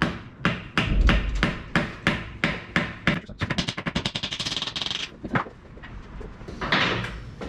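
Hand socket ratchet clicking as it turns a fastener on a transmission housing. Slow strokes of clicks about three a second give way about three seconds in to a fast rattle of clicks, then a few last clicks.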